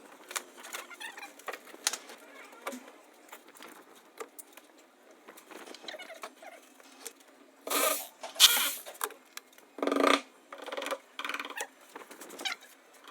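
Irregular light clicks and knocks of handwork on fittings and tools, with a few louder noisy bursts lasting under a second each, about eight and ten seconds in.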